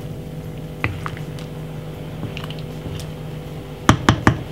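A wooden spoon in a stainless-steel soup pot knocks against it three times in quick succession near the end, over a steady low hum. Before that, a few faint soft sounds as pieces of dough are dropped into the soup.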